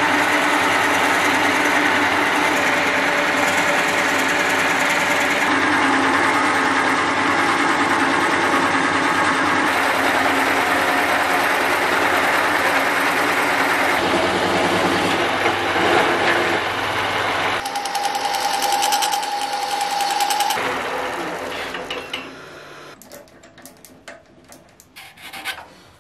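Wood lathe running, with a drill bit held in the tailstock chuck boring into the end of the spinning oak-root-and-resin blank: a steady whirring cut, with a steady high tone for a few seconds in the later part. The lathe then spins down and stops, followed by a few light knocks and clicks.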